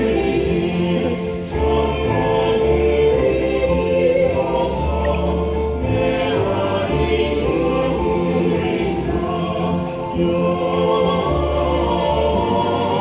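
A choir singing sustained, slow-moving phrases over steady low bass notes.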